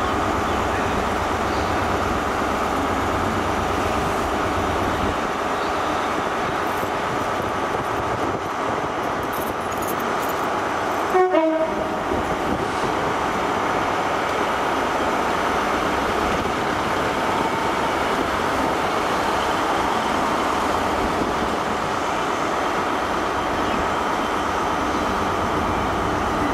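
Class 66 diesel locomotive, its two-stroke V12 engine running steadily as it slowly hauls a train of open freight wagons, with one short horn toot about eleven seconds in.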